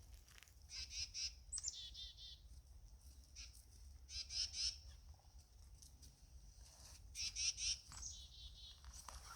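Black-capped chickadee giving its chick-a-dee call three times: a few short high notes followed by a run of buzzy repeated dee notes.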